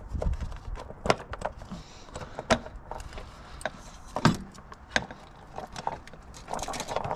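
Hand tools and plastic engine-bay parts being handled while screws and cover pieces come off: irregular sharp clicks and knocks, a few louder, with a scraping rustle near the end.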